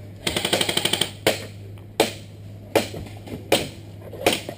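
Airsoft guns firing: a rapid full-auto burst lasting about a second, then single sharp shots spaced roughly three-quarters of a second apart.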